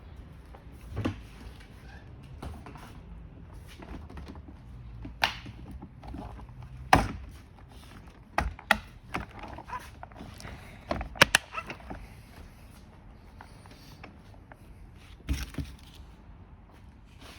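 Parts of an electric ride-on toy Jeep being handled and fitted during assembly: a few sharp clicks and knocks, spaced irregularly, over a faint background.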